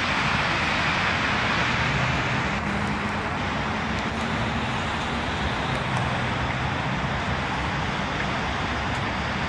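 Steady city road traffic: an even hiss of tyres on wet pavement with a low engine hum underneath.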